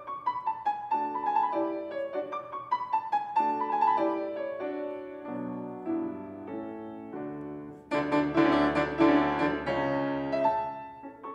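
Solo grand piano playing a classical piece: a flowing line of single notes over a lower accompaniment, then about eight seconds in a sudden louder, fuller passage of dense chords that eases back near the end.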